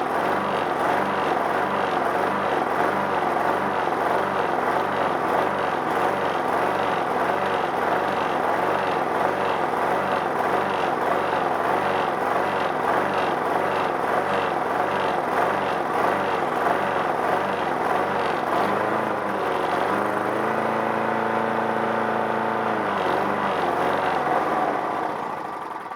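Briggs & Stratton lawnmower engine running after a one-pull cold start, having sat all winter without fresh gas. It runs steadily with a regular, repeating waver. About 20 seconds in it settles briefly into a smoother, steadier tone, and it gets quieter near the end.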